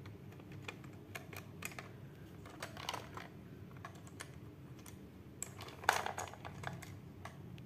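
Faint clicks and scrapes of a small screwdriver working the tiny screw on a plastic toy train car's battery cover, with the hard plastic car knocking in the hands; a denser, louder clatter about six seconds in.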